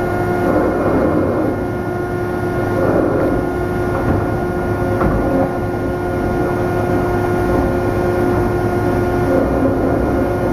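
Steady industrial machinery noise with a constant hum, from a deslagging machine skimming slag off molten metal amid steel-plant equipment.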